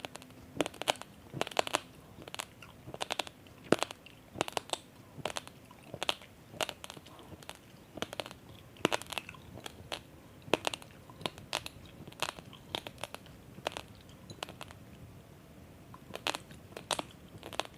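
Person chewing raw basmati rice grains: a run of sharp, crisp crunches, about one or two a second, thinning out for a few seconds before picking up again near the end.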